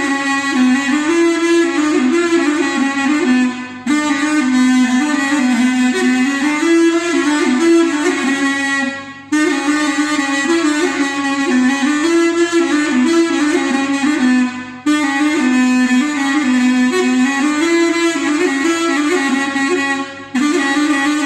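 Instrumental folk music led by a reed wind instrument playing a lively melody. The phrases repeat about every five and a half seconds, each ending in a short break.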